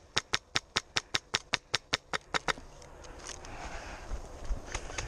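A steady rapid clicking, about five clicks a second, stops about two and a half seconds in. Tall grass then rustles and swishes as a person pushes through it. The clicking comes back near the end.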